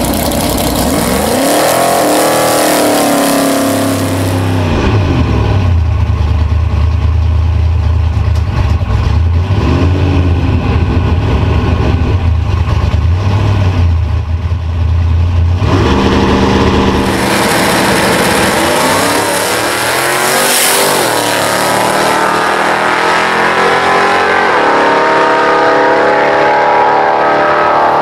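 Drag-racing Chevy's engine making a quarter-mile pass at full throttle. It revs at first, then gives a deep, steady drone heard from inside the cabin from about four seconds in. After that it climbs in pitch in steps as it pulls through the gears.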